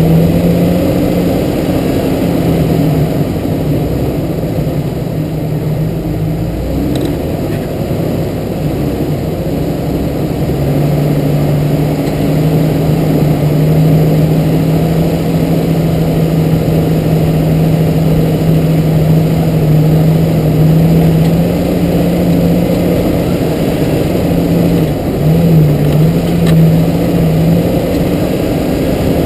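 Jeep TJ engine running steadily while driving along a dirt trail, a low, even drone that eases off briefly about seven seconds in, picks up again a few seconds later and wavers near the end.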